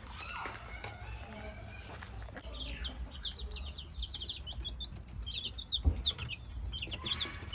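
Baby chicks peeping: a rapid run of short, high, falling cheeps starting about two and a half seconds in, with a single low thump near six seconds.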